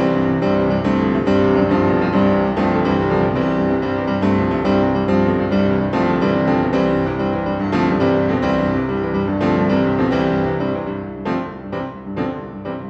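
Steinway & Sons concert grand piano played solo: a full, loud passage of many sustained notes that thins to softer, separate struck notes about eleven seconds in.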